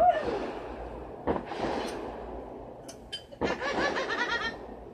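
Backyard consumer fireworks going off, with a sudden burst right at the start and another just over a second later. Wavering, arching sounds mixed with voices follow about three and a half seconds in.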